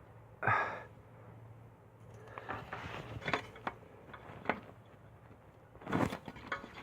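Handling noises of a syringe being pressed with both hands to force oil into a car's rubber suspension bushing: scattered short rubs and clicks, the loudest about half a second in and a cluster a few seconds later. The oil goes in hard, drop by drop.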